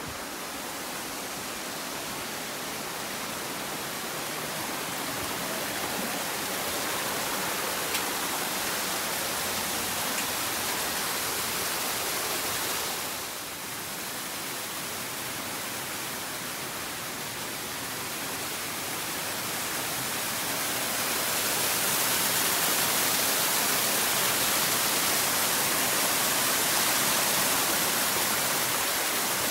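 Steady rush of a mountain stream and small waterfalls. It dips briefly about halfway through and grows louder in the last third.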